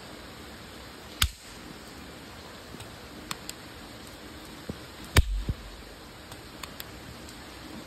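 Steady rain hiss with the sharp plastic clicks and snaps of a toy match gun being loaded and worked. Two loud snaps stand out, about a second in and about five seconds in, the second with a dull thump and a couple of quick follow-up knocks, between smaller ticks.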